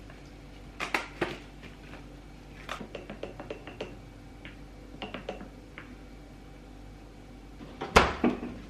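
Scattered light knocks and clicks of household items being handled, in small clusters, with the loudest knock near the end. A steady low hum sits underneath.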